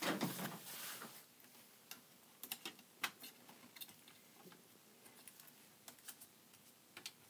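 Faint scattered clicks and taps of fingers pressing electrical tape onto a power supply's screw terminal block, with a short rustle in the first second.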